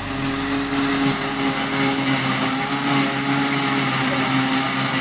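Self-propelled forage harvester chopping grass from a windrow, with a tractor and trailer running alongside it: a steady diesel engine drone with a rushing noise over it.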